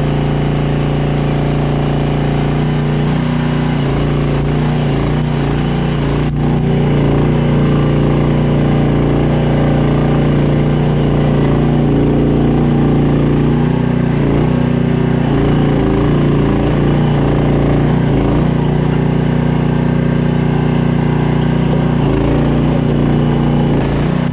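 A small 15-horsepower engine on a Chinese mini skid steer running steadily, its pitch wavering slightly at times, with a single sharp click about six seconds in.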